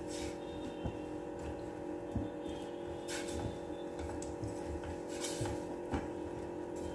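Orange plastic spatula stirring lumps of jaggery melting in water in a steel saucepan, with short scrapes and knocks against the pan every second or so, over a steady hum. The jaggery is being cooked down to make syrup.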